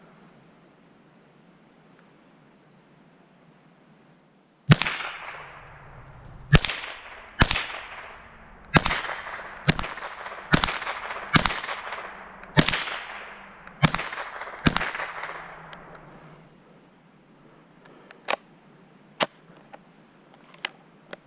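Mossberg 702 Plinkster semi-automatic .22 LR rifle firing ten shots, about a second apart, each crack trailed by an echo. A few fainter sharp clicks follow near the end.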